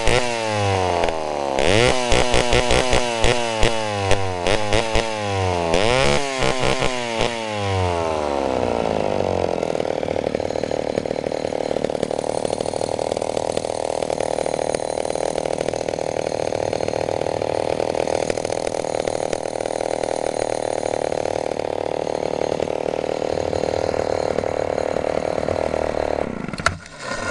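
Vintage Homelite XL-12 Super two-stroke chainsaw engine being revved in several quick bursts, its pitch sweeping up and back down each time. It then settles to a steady idle.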